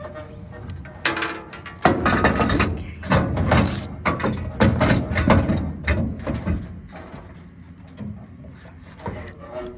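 Marker pen writing on a sheet of cardboard pressed against a car body. It is a run of irregular strokes and rubs, loudest over the first several seconds and quieter near the end.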